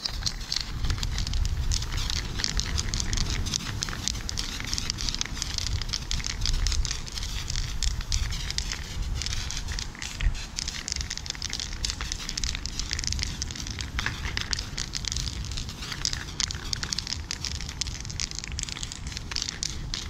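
Aerosol spray-paint can hissing as blue paint is sprayed onto a wall, with a crackly, sputtering edge and a low rumble underneath.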